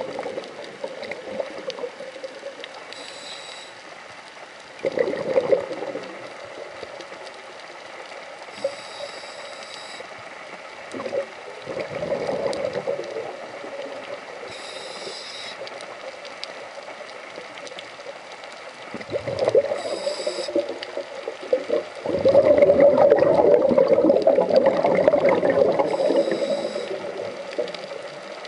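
Scuba diver breathing through a regulator underwater. A short hissing inhale comes every few seconds, and each is followed by a louder, longer burst of exhaled bubbles. The longest exhale comes about two-thirds of the way in.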